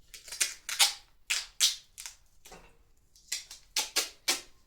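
Duct tape being pulled off the roll in about a dozen short, sharp rips at uneven intervals.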